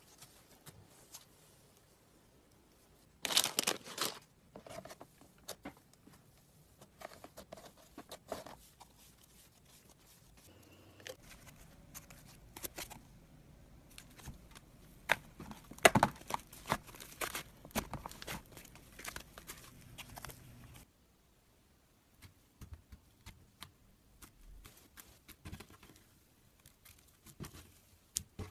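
Slime being squeezed, stretched and pulled apart by hand: sticky crackling, crunching and tearing with bursts of small pops. There is a loud crunchy burst about three seconds in and another loud run of crackles around the middle.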